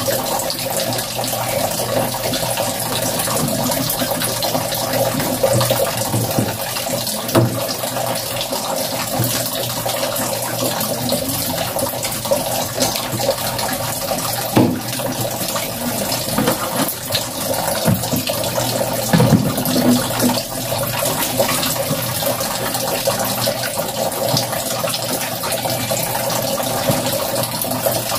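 Steady rush of running water, like a tap left running into a basin or bucket in a small bathroom, with a few light knocks of plastic clothes hangers being handled.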